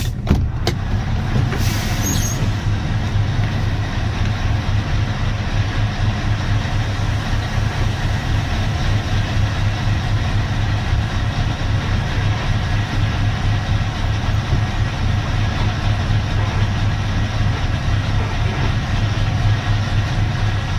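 Scania V8 logging truck engine running steadily under load while hauling a full log trailer, with road and drivetrain noise. A few clicks and a short hiss come in the first couple of seconds.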